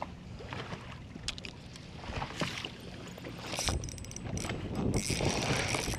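Waves slapping against a fishing boat's hull in choppy water, with wind. A few light clicks and knocks are scattered through, and the water and wind noise grow louder over the last couple of seconds.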